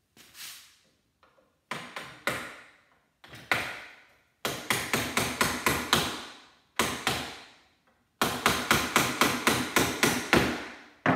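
Steel hammer striking a punch to drive the cast-aluminum casing off a leaf blower's electric motor. A few separate blows come first, then two runs of quick strikes at about five a second, each blow with a short metallic ring.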